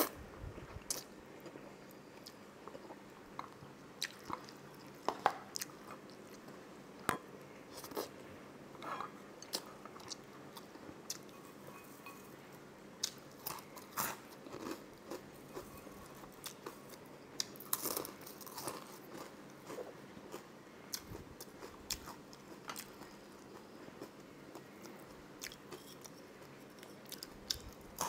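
A person eating close to the microphone: irregular chewing, biting and crunching sounds with short, sharp crunches scattered throughout.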